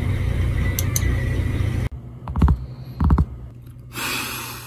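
Two sharp mouse clicks over a steady low hum. After an abrupt cut, fingers drum on a desk in two quick rolls of about three taps each, and a short hiss follows near the end.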